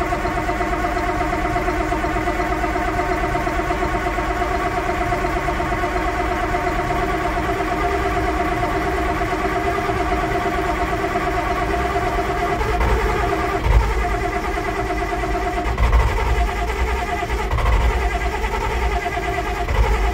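Massey Ferguson 1135 tractor's six-cylinder diesel engine idling steadily. From about twelve seconds in, a deeper rumble and a few short thumps join in.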